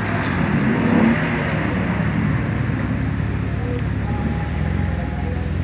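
Car engines running, with a steady engine note and a slight rise and fall in pitch.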